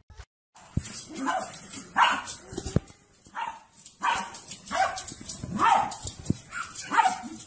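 Small black dog barking in a quick series, about ten short barks, while it spins and jumps in play.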